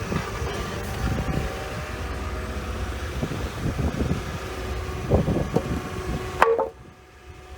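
Toyota 8FGCU30 forklift's engine running steadily while the hydraulic mast is raised and tilted back. The sound drops away abruptly near the end.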